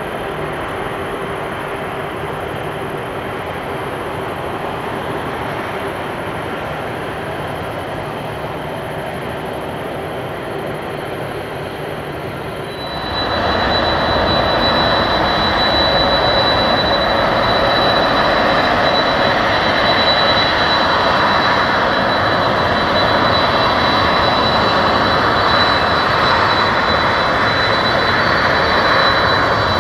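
Jet airliner taking off: steady engine rumble that about 13 seconds in jumps abruptly louder, with a high, steady whine added on top.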